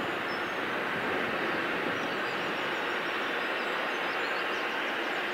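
Steady distant mechanical rumble of harbour machinery, the grab crane among it, with a few faint high chirps above.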